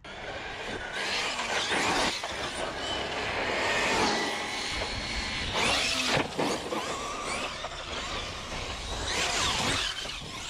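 A 6S brushless RC buggy driven hard: its motor's high whine rises and falls again and again as it accelerates and lets off, over a steady rushing noise.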